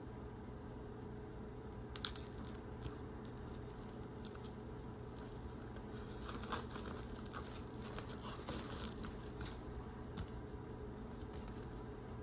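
Plastic wrapping being peeled and torn off a CD case: faint crinkling and scratching with scattered clicks, one sharp click about two seconds in and denser crackling in the second half, over a steady low hum.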